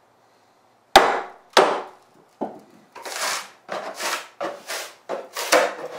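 Wooden mallet striking a froe twice, driving it into a Western red cedar block, followed by the cedar crackling and tearing in a string of short bursts as the froe is levered to split off a shake.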